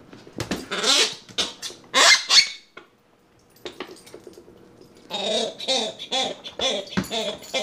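Rubber squeaky dog toy squeaking in repeated bursts, with a short pause about halfway and quick, rapid squeaks near the end.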